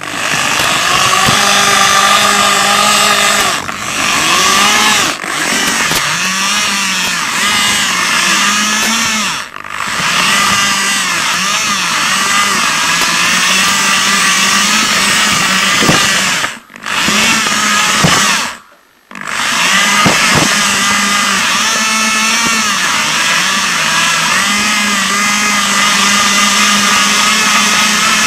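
Electric drive motors and gearboxes of a small radio-controlled FPV rover whining while it drives, the pitch rising and falling as it speeds up and slows, over a rough rolling noise. It stops briefly several times, most clearly twice in the second half.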